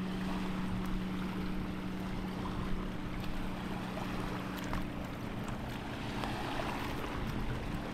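Small lake waves lapping on a sandy shore, with wind on the microphone, over a steady low hum.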